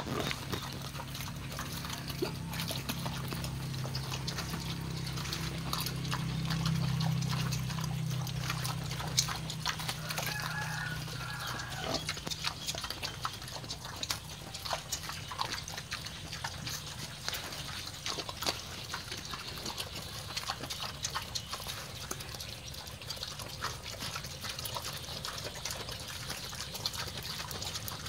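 Two hybrid wild boars munching jackfruit: a steady run of wet smacking and crunching chews. A low hum sits underneath for about the first half.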